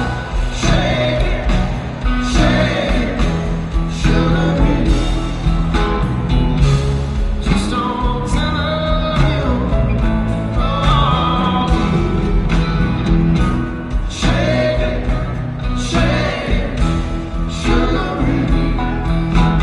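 Music: a song with a singing voice and a steady beat.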